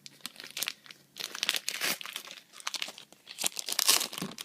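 A 2007 Upper Deck Artifacts baseball card pack's wrapper crinkling and tearing as it is torn open by hand, in two spells of rustling, the louder one near the end.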